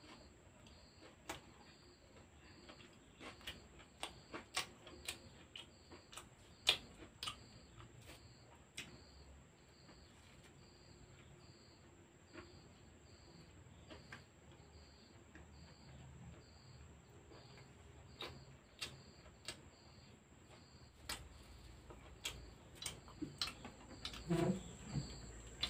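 Faint eating sounds: irregular sharp clicks of chewing and tearing soft pav bread. Behind them, a cricket chirps with a steady, even pulse. A short low murmur comes near the end.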